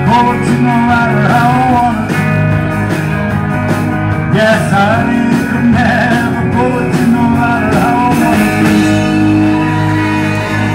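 Live rock band playing loudly: electric guitars, bass and drums, with a man singing through a microphone over the PA.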